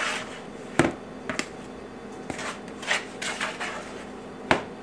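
A spoon scooping dry powdered seasoning in a plastic mixing bowl: soft scrapes and light clatter, with two sharp knocks against the bowl or the metal shaker, one about a second in and one near the end.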